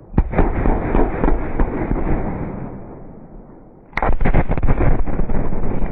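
Blast of about 30 kg of dynamite packed on a car: a sudden loud crackling bang with a heavy low rumble that fades over about three seconds. A second crackling blast comes about four seconds in, and its rumble carries on.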